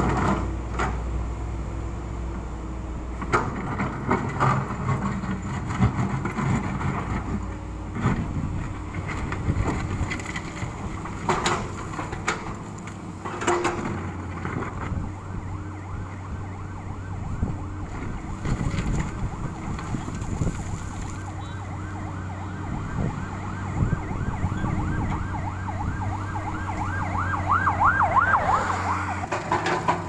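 Komatsu PC200 hydraulic excavator's diesel engine running steadily while its bucket scrapes and knocks against broken asphalt chunks, with repeated clanks and thuds. Near the end, a high, rapidly warbling tone comes in.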